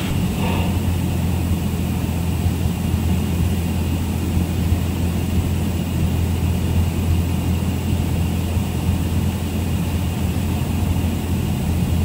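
Cessna 172 Skyhawk's engine and propeller droning steadily, heard from inside the cabin in flight.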